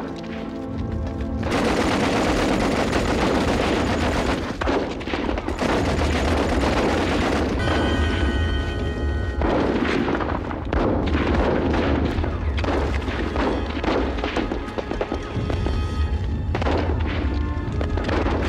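Battle sound effects: dense rifle and machine-gun fire with booming explosions, breaking in loudly about a second and a half in and continuing thickly, over music.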